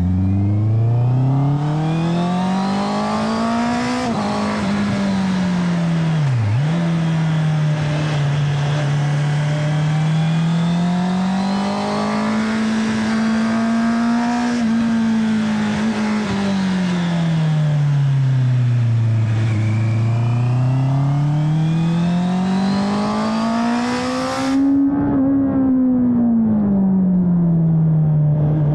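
Honda CB650R's inline-four engine, fitted with an aftermarket DNA air filter, heard from on the bike while riding: its note climbs and falls several times as the throttle is opened and closed, with a brief sharp drop in pitch about six and a half seconds in. A high hiss over it stops abruptly near the end.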